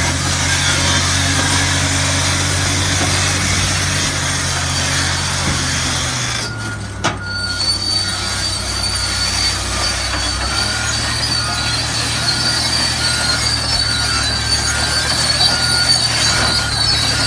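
CAT D8R crawler dozer's diesel engine running under load as it rips through broken rock, with the clatter and crunch of its tracks and ripper. About six and a half seconds in, the engine note drops. From then on a high, steady squeal from the running gear and a reverse alarm beeping about once a second sound over the engine.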